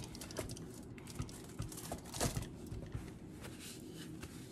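Spaghetti squash halves being turned over and set down on a foil-lined baking sheet: scattered soft knocks and rustling of the foil, with a few louder knocks a little after two seconds in.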